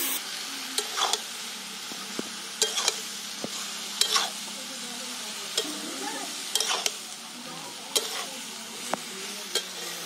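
Water lily stems sizzling in a metal karahi of mustard-poppy gravy while a flat metal spatula stirs them, scraping and clinking against the pan about a dozen times at irregular intervals.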